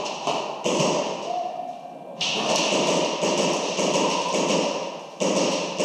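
Bursts of rapid airsoft gunfire, a dense run of sharp cracks and taps echoing around a large warehouse hall, with fresh bursts starting suddenly about a second in, around two seconds in and near the end.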